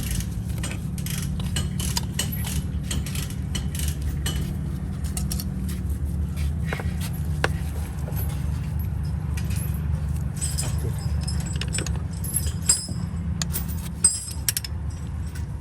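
Metal hand tools clicking and clinking as the oil pressure sensor is worked loose, with many quick clicks over a steady low hum that stops near the end. In the last few seconds there are brighter, jingling clinks of metal on metal.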